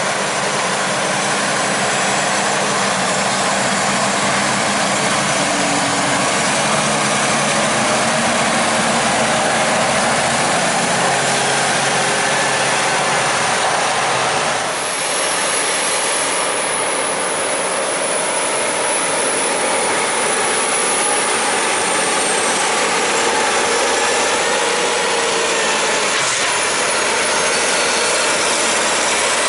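New Holland tractors' diesel engines running hard as the tractors push and pack corn silage with front blades on the silage pile. A thin high whistle wavers up and down in pitch through the second half, and the level dips briefly about halfway through.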